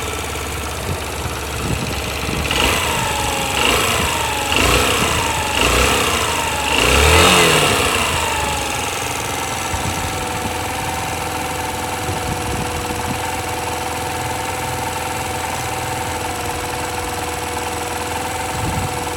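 Yamaha YBR125's single-cylinder four-stroke engine idling, blipped five times in quick succession about three to eight seconds in (the last blip the highest), then settling back to a steady idle. The seller lists a slight abnormal noise from the cylinder head on this engine.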